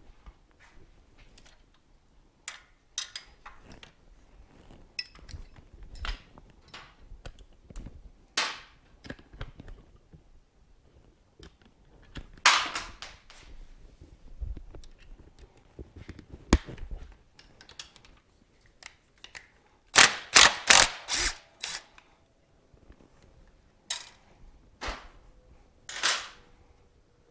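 Irregular sharp clicks and metallic clinks of hand tools and parts being handled during motorcycle disassembly, with a quick run of about five loud clicks about two-thirds of the way through.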